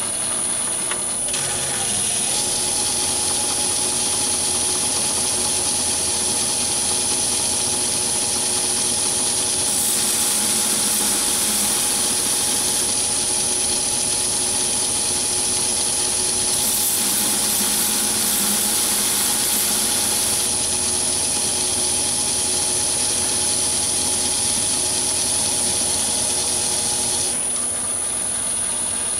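Myford ML7 metal lathe spinning up and running steadily with a brass workpiece in the chuck, while a grooving tool cuts decorative grooves in it. The cutting is heard twice as a few seconds of added hiss, and the lathe slows down near the end as it is switched off.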